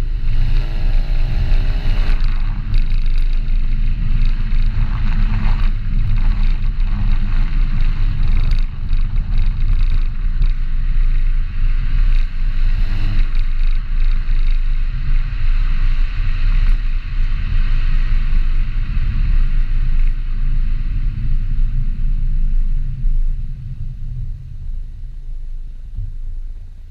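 Volkswagen Golf Mk7 GTI facelift's 2.0-litre turbocharged four-cylinder engine and exhaust under way, rising in pitch as it accelerates at the start, then running on steadily. It fades and gets quieter near the end.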